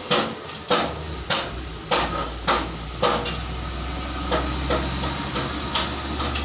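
Regular sharp knocking, about three knocks every two seconds and weaker for a moment in the middle, over a steady low hum.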